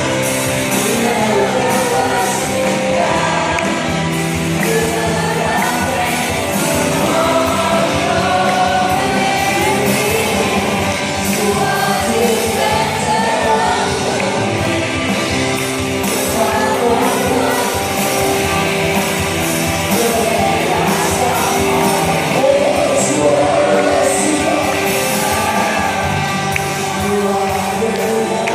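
A song with singing voices over instrumental backing, playing steadily throughout.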